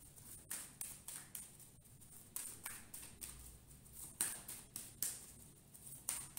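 A deck of oracle cards being shuffled by hand: soft, irregular taps and flicks of the cards against each other, a few a second.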